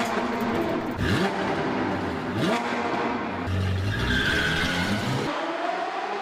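A car engine revving with repeated rising pitch, mixed with tyre squeal; near the end the low rumble drops away under one last rising rev.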